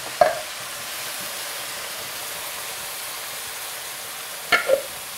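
Skillet of sautéed mushrooms, green onions and garlic with freshly added diced tomatoes sizzling in olive oil: a steady hiss. Two brief clinks against the pan, one near the start and one near the end.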